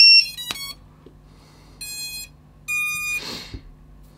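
Electronic startup tones of a 4-inch FPV quadcopter's ESCs and motors as its LiPo battery is plugged in: a quick run of short beeps, then two longer beeps about a second apart, the power-up sequence that signals the ESCs have started and found the flight controller. A brief hiss follows.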